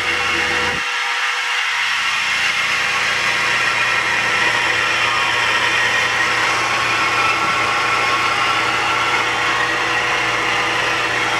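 1999 Honda Civic EX's D16Y8 SOHC VTEC engine running with a loud, steady noise from the engine bay whose cause is unknown.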